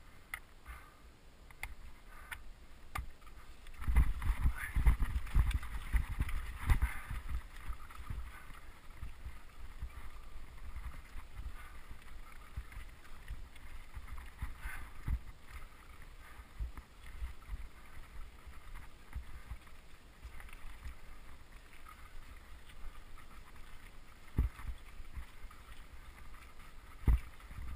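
Mountain bike riding up a loose, stony track: tyres crunching over gravel and the bike rattling over the stones, with heavier jolts about four to seven seconds in and two sharp knocks near the end.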